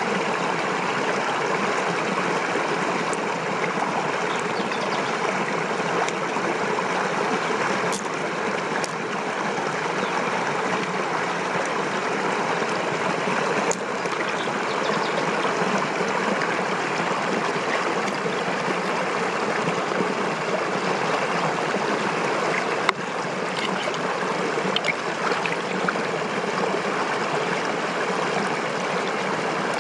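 Steady flowing water, with a few faint clicks now and then.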